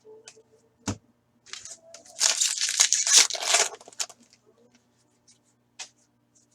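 A foil hockey card pack wrapper being torn open: a crinkling rip lasting about two seconds, with a sharp click just before it.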